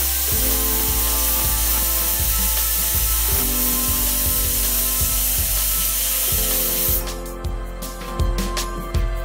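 Aluminium pressure cooker on a gas flame letting off steam through its weighted whistle, the pressure release counted to time the cooking: a loud steady hiss that cuts off sharply about seven seconds in, followed by a few clicks. Background music of slow held chords plays throughout.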